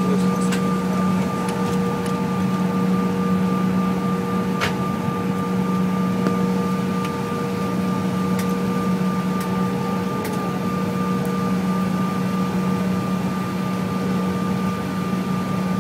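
Steady cabin hum of a CRJ1000 on the ground, its two GE CF34 turbofans running at low power with a constant whine over a broad rush of air, heard through the fuselage. A few faint ticks, the clearest about four and a half seconds in.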